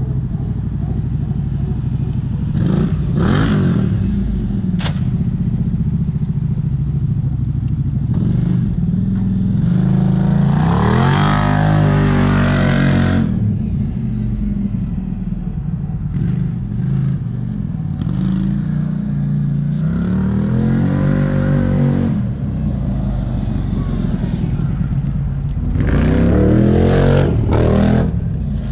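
CF Moto 800 EX's V-twin engine running through a custom exhaust with carbon-fibre mufflers, revved up and let fall back four times, the longest rev about ten seconds in. A single sharp click sounds about five seconds in.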